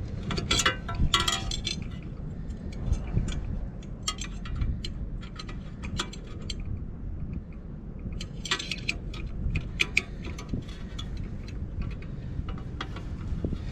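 Wrench and metal parts clinking and ticking against the rooftop unit's inducer assembly, in clusters about half a second in and again around eight to ten seconds, over a steady low rumble of wind on the microphone.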